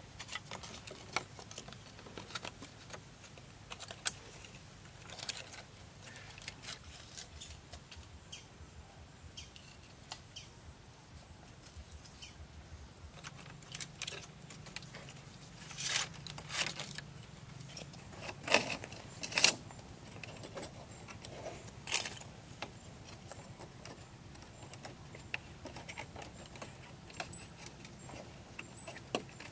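Light clicks and rustles of bamboo slats being handled and tied onto a bamboo frame, with a handful of sharper, louder knocks a little past the middle.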